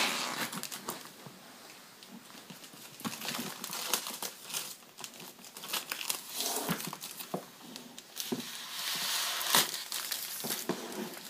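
Plastic shrink-wrap being peeled off a boxed laptop and crumpled by hand: irregular crinkling and crackling, with a louder spell near the end.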